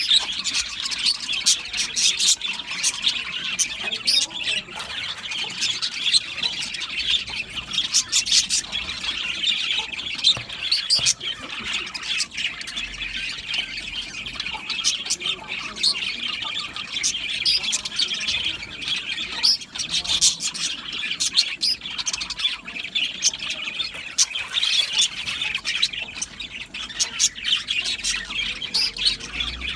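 A colony of budgerigars chattering together: a dense, continuous warble with many short, sharp chirps and squawks overlapping throughout.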